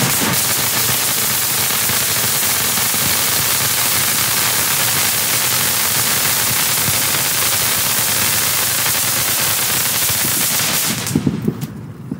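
Black Cat Medusa firework fountain spraying sparks with a dense, continuous crackling and hissing. A few separate louder pops come near the end, just before it cuts off.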